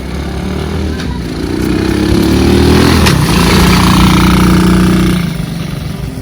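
A motor vehicle's engine passing close by. It grows louder to a peak about halfway, drops in pitch as it goes past, then fades away.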